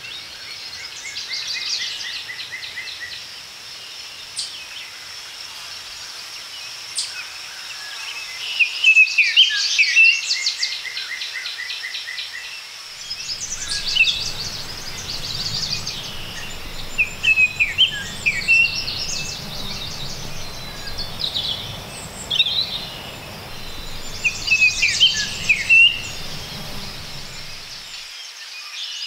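Several songbirds singing over one another in repeated chirps and short trills. A low rumble comes in about halfway through and stops shortly before the end.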